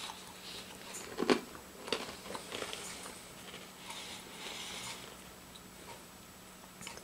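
A person biting into and chewing a hard, dry ration cracker: a run of crisp crunches in the first three seconds, the loudest about a second in, followed by softer chewing.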